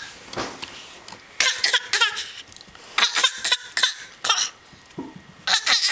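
A toddler making short, raspy, quack-like noises, several in a row, imitating a duck.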